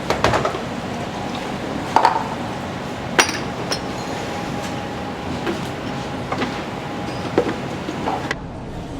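Busy restaurant kitchen clatter: a few sharp clinks and knocks of dishes and utensils over a steady background of kitchen noise.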